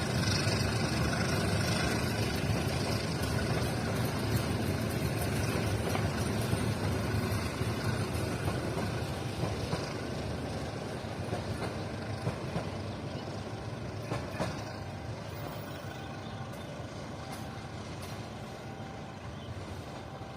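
Passenger train rolling along the track, a steady rumble that fades gradually as it draws away.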